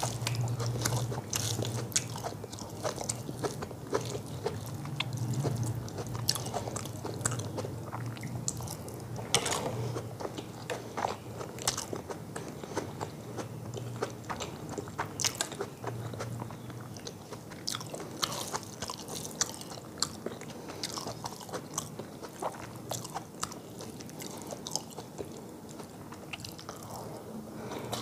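Close-miked eating: fingers mixing rice and fish curry on a metal plate, and mouth chewing, with many small sharp clicks and crackles.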